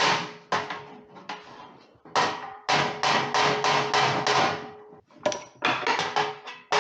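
Body hammer striking the thin sheet-metal grille of a Massey Ferguson 231 tractor against a dolly to knock out dents. The strikes come in quick runs of ringing metallic taps with short pauses between.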